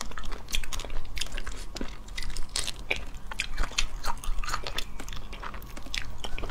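Cooked crayfish shells being cracked and peeled by hand while the meat is bitten and chewed: a fast, irregular run of crisp cracks and clicks.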